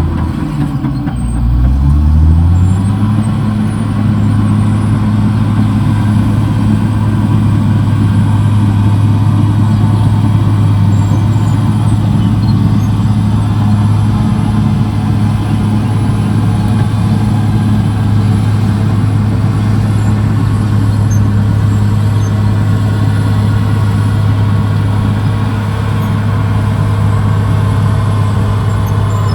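CAT D6R XL bulldozer's diesel engine running hard and steady. About a second in, its pitch dips sharply and climbs back, then holds even.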